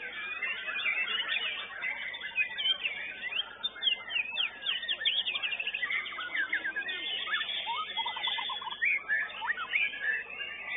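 White-rumped shamas (murai batu) singing at a songbird contest, several at once: dense, overlapping whistles, sweeping chirps and quick notes, with a fast rattling trill about seven to eight seconds in.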